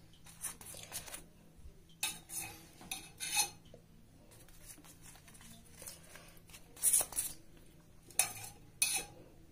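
Metal spoon clinking and scraping against a dish as ghee is spread on rotis: short, scattered clinks, the loudest about seven and eight seconds in.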